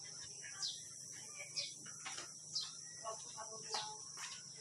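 A bird calling with short, quick descending chirps about once a second, over a steady high insect drone. Faint voices murmur in the background.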